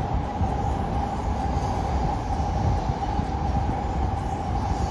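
A train running past on the rails, a steady rumble with a continuous mid-pitched hum over it.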